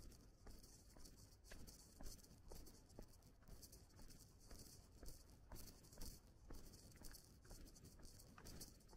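Faint footsteps at a steady walking pace, about two steps a second, under a steady hiss.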